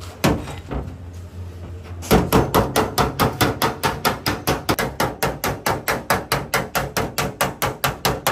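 Hammer blows on the sheet metal of a Honda car door, beating out a dent. A single knock comes near the start, then from about two seconds in rapid, even hammering at about five blows a second.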